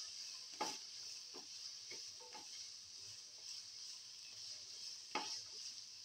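Sliced onion and garlic sautéing in oil in a nonstick pan with a faint, steady sizzle. A spatula stirs and scrapes across the pan a few times, most sharply about five seconds in.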